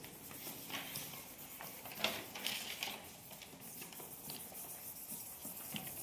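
Scattered light taps and scratchy rustles over low room noise, a few short clicks standing out.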